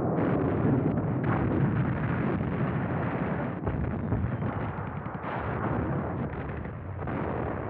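Continuous battle noise: a dense barrage of artillery fire and gunfire, a steady rumble packed with overlapping blasts, slowly easing in loudness. It sounds dull, with no high end.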